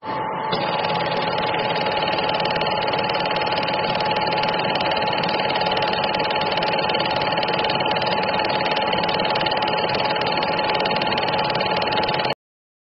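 Steady whirring clatter of a running film projector, with a constant hum-like tone, cut off suddenly near the end.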